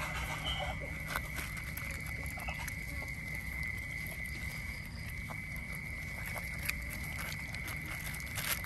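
Otters chewing and crunching fish, heard as scattered wet clicks and smacks. Under them runs a steady high-pitched whine and a low rumble.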